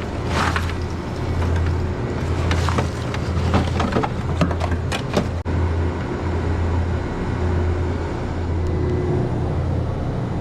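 Steady low machinery hum, pulsing slightly in level, with scattered knocks and rattles of handling in the first half.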